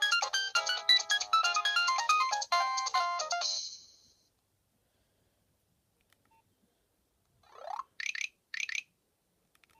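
A Nokia 7100 Supernova's speaker playing a polyphonic Nokia 3510 ringtone melody, several notes at once, which ends about three and a half seconds in. After a silence, a short rising sweep and two brief high chirps sound near the end.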